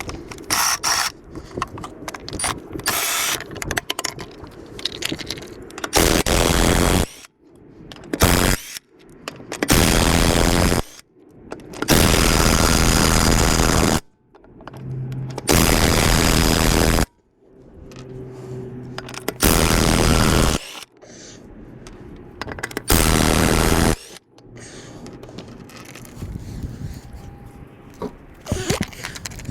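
Impact wrench run in about seven short bursts of one to two seconds each, loosening the lug nuts to take a car wheel off. Quieter handling noises come between the bursts.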